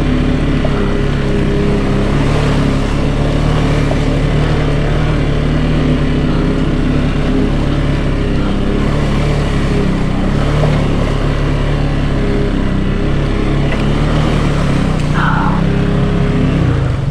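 Can-Am Outlander 700 ATV engine running at a steady, fairly even speed.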